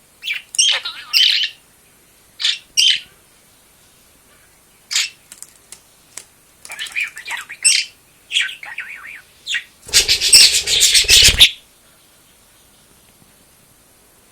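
Budgerigar chirping and chattering in short, high-pitched bursts. About ten seconds in, a loud rustling burst lasts roughly a second and a half.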